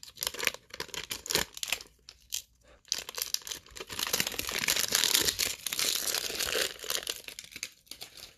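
Pinnacle baseball card pack wrapper being torn open by hand and crinkling, first in short bursts, then about three seconds in a longer continuous crinkling as the cards are worked out of the wrapper.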